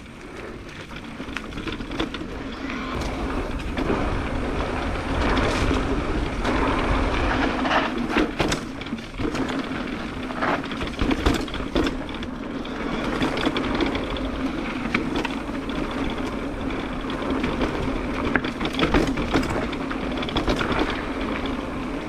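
Electric mountain bike running fast down a rough dirt trail: a steady rush of riding noise from tyres on dirt and air past the camera, with frequent sharp knocks and rattles as the bike hits bumps and rocks.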